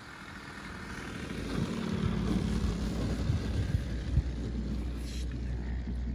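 Radio-controlled model plane's engine and propeller at low throttle on landing, growing louder as it comes close, then settling to a steady low idle as it rolls out on the grass. A single knock sounds about four seconds in.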